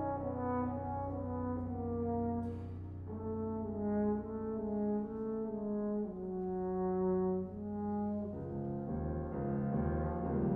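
French horn playing a slow melody of long held notes, with piano accompaniment sustaining low bass notes underneath.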